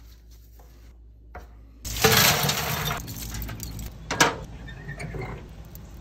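Metal clinking and clanking at a charcoal barbecue smoker as its steel lid is opened and a stainless-steel wire drumstick rack is set on the grate, with one sharp clank a little after four seconds. A sudden loud rush of noise comes in about two seconds in, after a quiet start.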